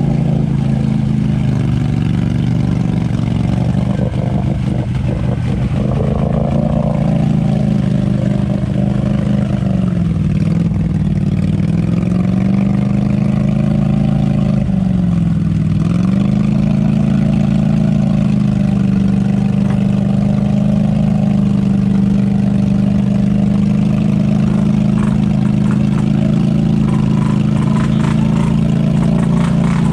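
Polaris Sportsman 570's single-cylinder engine held at high revs as the ATV is driven through deep mud, its pitch sagging twice under load and recovering each time.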